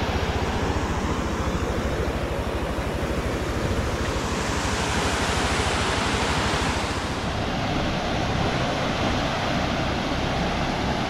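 Creek water rushing over a low stepped rock cascade, a steady hiss that grows brighter for a few seconds in the middle, with a low rumble of wind buffeting the microphone underneath.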